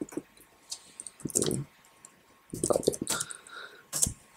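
Computer keyboard typing and mouse clicks: a few single sharp clicks and two short runs of keystrokes, about a second and a half and three seconds in, as the button title is typed as LOGIN.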